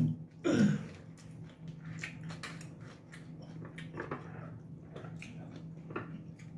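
Two people eating: quiet chewing and plastic forks clicking faintly against food trays and glass jars, over a steady low hum. A short voiced sound comes about half a second in.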